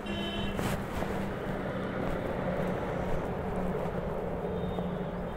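A vehicle engine running steadily under general street noise. A short, high, beep-like tone sounds right at the start.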